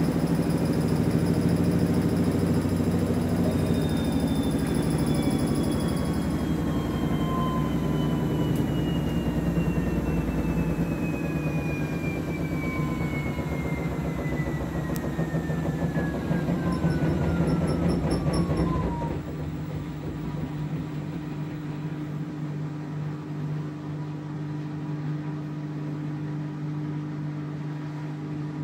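Samsung front-loading washing machine running, its drum and motor giving a loud rumble with a whine that falls steadily in pitch as the drum slows. About two-thirds of the way through the rumble and whine stop, leaving a quieter steady hum.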